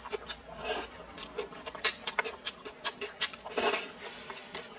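Close-miked chewing of a mouthful of rice and vegetables, with many quick wet mouth clicks and smacks, and two short breathy sounds, one near the start and one past the middle.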